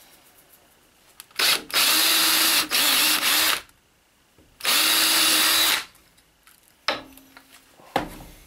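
Ryobi cordless drill driving two screws into a small block of wood, in two short runs of the motor: the first about two seconds long with a brief let-up midway, the second about a second long. A couple of short knocks follow near the end.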